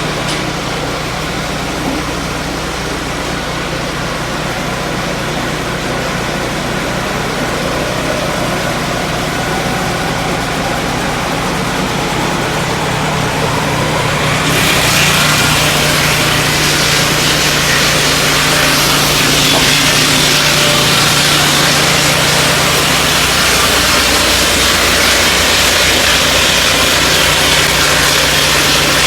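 Turbosawmill M10-22A portable sawmill's engine running steadily. About halfway through, the blade goes into the hardwood log and a loud, hissing sawing noise joins the engine and continues.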